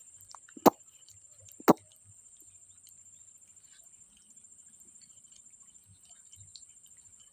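Two sharp knocks about a second apart, over a steady faint high-pitched hiss.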